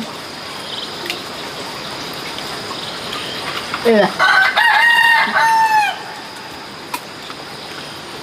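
A rooster crowing once, about four seconds in: a call of about two seconds that rises, holds and falls away at the end.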